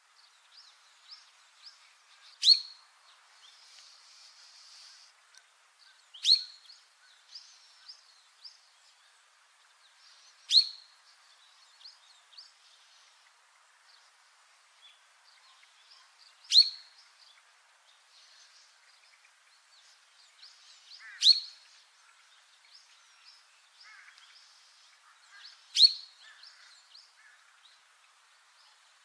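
A small songbird kept as a cage bird under the name siri-siri jepang, giving six sharp, very short calls that sweep down in pitch, one every four to five seconds, with faint soft chirps in between.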